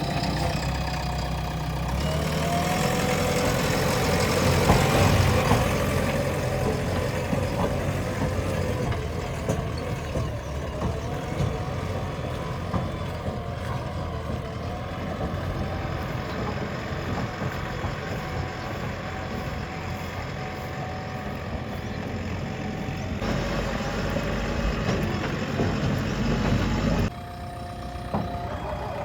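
Diesel engine of a JCB 3DX backhoe loader running as it works, swelling in loudness for a few seconds early on, then steady; the sound drops abruptly near the end.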